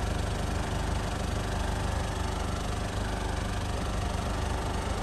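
Mazda Bongo Friendee's WL-T turbo-diesel four-cylinder engine idling steadily.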